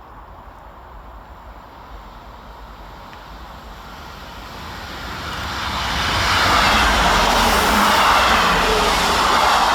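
Train running along the platform, a rushing, rumbling noise that builds over a few seconds to a loud peak in the second half, then starts to ease off near the end.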